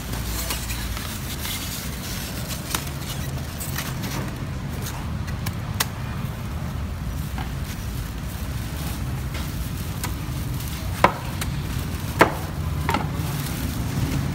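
A cleaver cutting into a durian's thick spiky husk and the husk being pried apart, heard as scattered sharp knocks and cracks, the two loudest near the end, over a steady low rumble.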